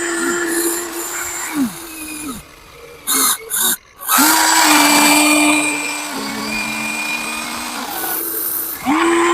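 The electric motors of a Huina 1594 RC excavator whine while driving its gearing. The whine starts and stops several times, each start a quick rise in pitch and each stop a fall. Around the middle there is a short pause with two brief blips, and a little later the pitch steps down.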